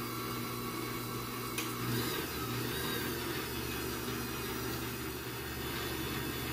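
Electric stand mixer running steadily at one speed, its beaters mixing yeast into the malassada batter.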